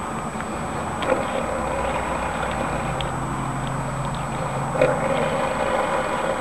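A person snoring, with one long, low, rough snore starting about two and a half seconds in, over a steady background hiss.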